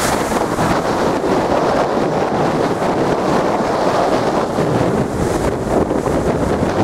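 Storm waves surging and breaking against a sea wall, a steady rush of rough surf with no single distinct crash, under heavy wind buffeting the microphone.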